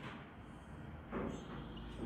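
Faint sound of a whiteboard marker rubbing across the board as a word is written, over quiet room noise, with a brief soft swell a little over a second in.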